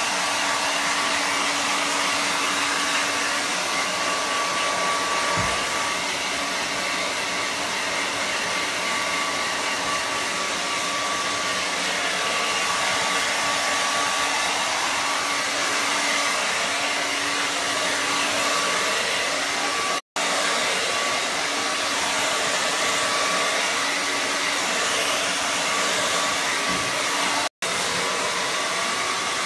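Hand-held hair dryer blowing steadily, a constant rushing hiss with a faint steady whine, as it dries a wet dog's coat. The sound cuts out for an instant twice, about two-thirds of the way in and again near the end.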